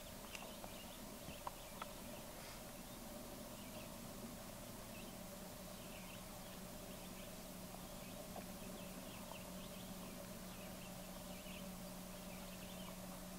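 Quiet open-air ambience: faint, scattered high chirps from wildlife throughout, over a steady low hum. There are a few light clicks in the first two seconds.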